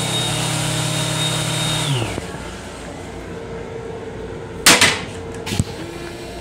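Train lavatory faucet running with a steady electric hum and whine that winds down and stops about two seconds in as the water shuts off. About four and a half seconds in, the hard plastic toilet seat clatters loudly, followed by a lighter knock.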